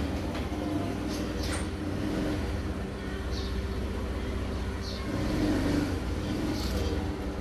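Steady low hum of a running engine, with two brief high chirps about three and a half and five seconds in.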